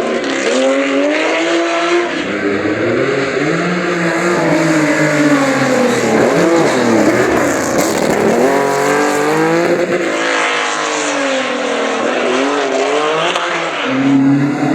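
Historic rally car engines revving hard, the pitch climbing and dropping again and again with throttle and gear changes as the cars drift through a stage. The sound changes abruptly about two and ten seconds in.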